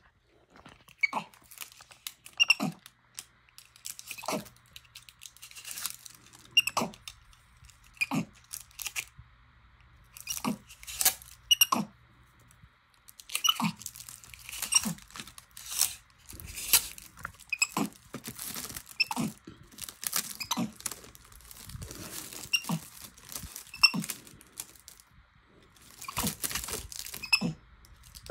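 Clear Scotch tape being pulled off its roll, torn and crumpled by a capuchin monkey's hands: irregular sticky crackles and short rips, busier about halfway through.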